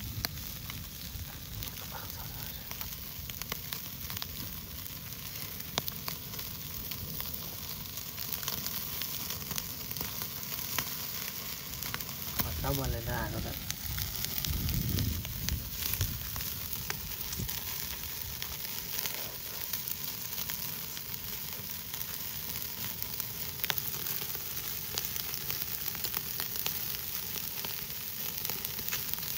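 Chicken pieces sizzling on a wire mesh grill over an open wood fire. A steady hiss runs throughout, with small clicks and pops from the meat and embers.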